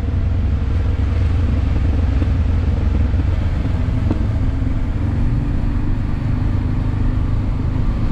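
Motorcycle engine running at a steady road speed, under a heavy, steady low rumble of wind and road noise.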